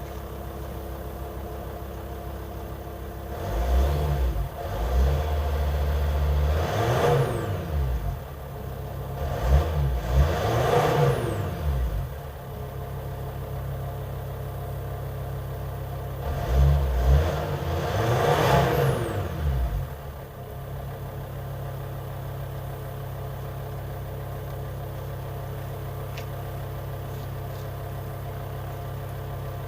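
VW T5 Transporter's 2.5 TDI five-cylinder diesel idling and revved up three times, each rev rising and falling back, then settling to a steady idle. The owner puts the engine's white-grey smoke down to bad injector seals.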